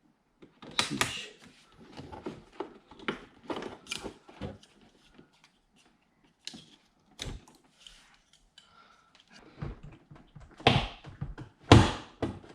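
Plastic clicks, taps and knocks of a car's interior door trim panel being worked loose with plastic pry tools, in irregular bursts, with a few louder thumps near the end.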